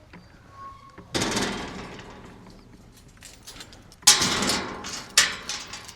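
Boots squelching and sliding through slippery wet mud: two loud, sloppy bursts of steps, one about a second in and a bigger one about four seconds in.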